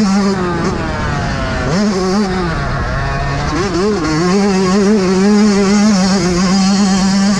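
Yamaha YZ125 two-stroke single-cylinder dirt bike engine revving hard under throttle. Its pitch drops and climbs back several times between about one and four seconds in, then holds high and steady.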